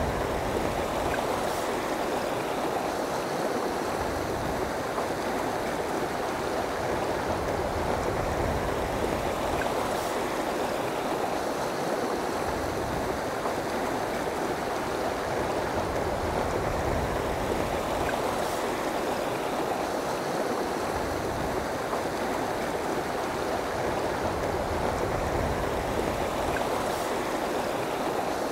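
Steady rush of river water flowing over rocks and small rapids.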